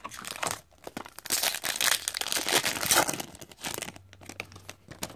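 Foil wrapper of a trading-card pack being torn open and crinkled, loudest in the middle and fading out about four seconds in, followed by a few faint clicks of cards being handled.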